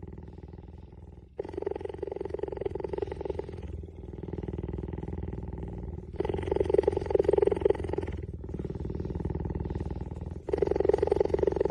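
Cheetah purring, a continuous fine rattle that swells into louder stretches about every four to five seconds, with softer stretches between.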